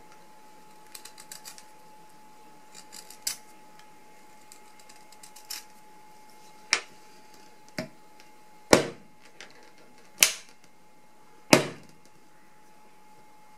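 Kitchen knife working a wooden pencil on a wooden cutting board: a few small clusters of light scraping clicks as the blade shaves the pencil, then, from about halfway, five sharp knocks as the blade is brought down hard onto the pencil and board. A faint steady tone runs underneath.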